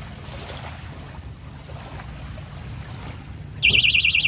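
Electronic fishing bite alarm: faint high beeps about three a second, then about three and a half seconds in a loud, continuous, rapidly warbling alarm starts suddenly, signalling a fish taking the bait.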